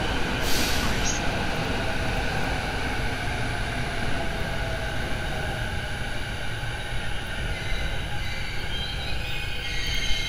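Tobu 100 series electric train starting to pull out of the station: a steady low rumble and hum, with a short hiss about half a second in and the motor whine beginning to rise near the end as it gets moving.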